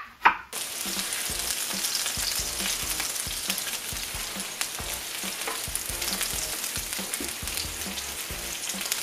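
Beef large intestines (daechang) sizzling and crackling in their fat on a griddle pan, a steady frying hiss full of small pops. A short loud sound comes right at the start.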